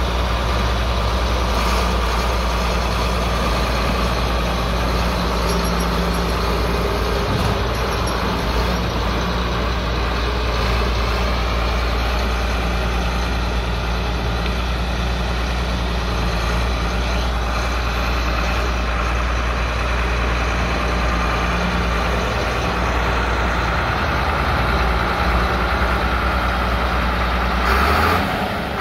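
John Deere 8650 four-wheel-drive tractor's diesel engine running steadily at a low speed. Near the end the throttle is opened and the engine revs up.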